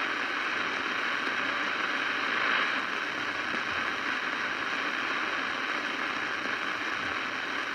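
CB radio receiver hissing with steady static on an open channel between transmissions, no station coming through.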